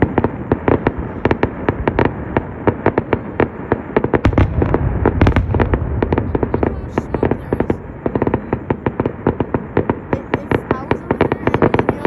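Aerial fireworks display: a dense run of sharp crackling pops, several a second, from bursting shells. A deeper rumble of heavier booms builds under the pops in the middle.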